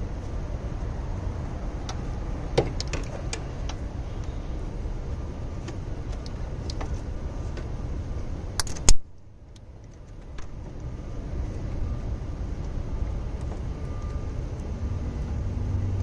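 Light metallic clicks and clinks as heavy-gauge battery cables with ring terminals are handled and routed through the engine bay, over a steady low background rumble. There is a sharp knock about nine seconds in, after which the rumble drops away for a moment before returning.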